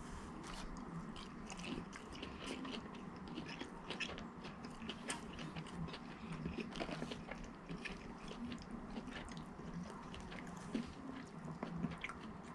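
A person chewing and biting chicken nuggets dipped in ranch sauce, close to the microphone: a steady run of irregular small, moist mouth clicks and crunches.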